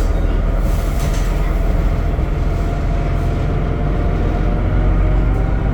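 Temsa Avenue LF 12 city bus running on its DAF diesel engine and ZF automatic gearbox, a steady loud drone with a strong low rumble and a few steady tones above it.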